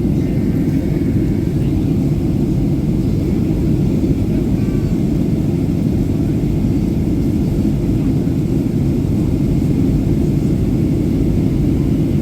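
Steady low rumble of a Boeing 737-800 heard from inside the cabin during descent: its CFM56 engines and the airflow over the fuselage, unchanging throughout.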